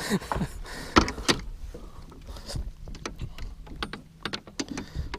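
A series of knocks and clicks of the landing net and fishing gear being handled against the side of an aluminium boat, the loudest about a second in, followed by smaller, quieter clicks.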